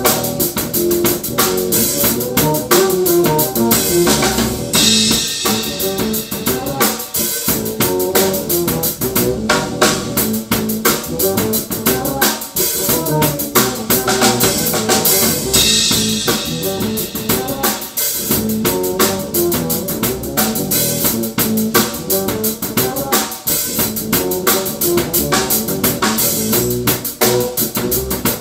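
Live drum kit and electric bass playing a groove together: a busy rhythm of snare, rimshots and bass drum over a walking bass line. The cymbals ring out louder twice, about five seconds in and again about sixteen seconds in.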